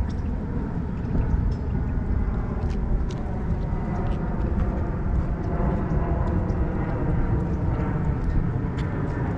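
Wind buffeting the microphone: a steady, fluttering low rumble with faint scattered ticks.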